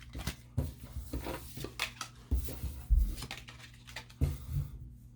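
A stack of trading cards being handled and sorted by hand: rustling and sliding with a string of sharp taps and several low thumps, the loudest about two and a half, three and four seconds in.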